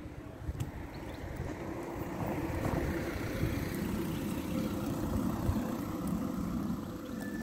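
A passing vehicle: a low rumble that swells about two seconds in, holds for a few seconds and eases off again.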